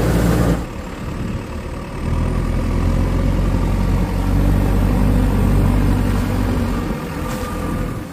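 JCB backhoe loader's diesel engine running, with a loud rush of splashing water for the first half-second as it ploughs through flood water. The engine picks up about two seconds in and runs on steadily as the loader works its bucket.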